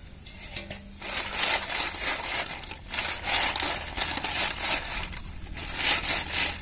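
Hard-boiled eggs jostled in an aluminium pot, their shells crackling and cracking as they knock together, in irregular bursts starting about a second in.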